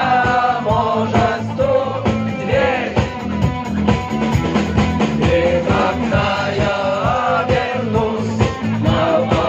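Rock-style song music with a steady beat and a bending lead melody line, in a stretch without sung words.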